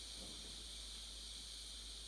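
Faint steady steam hiss from the sound decoder of an N-scale Fleischmann BR 98 model steam locomotive, played through the loco's tiny speaker as it creeps off at very low speed.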